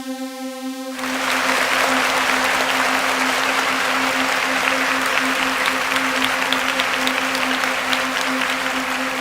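A steady droning note, joined about a second in by sustained crowd applause, dense clapping that holds at an even level.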